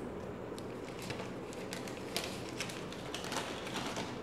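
Packaging being handled: faint light crackles and small tapping clicks, thickening into a quick cluster in the second half, over a steady low room hum.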